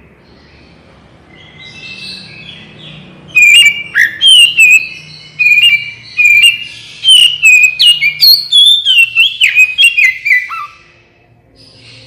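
Oriental magpie-robin (kacer) singing: soft notes at first, then about three seconds in a loud, quick phrase of whistled notes mixed with sharp high chips and falling slurs, which stops about a second before the end.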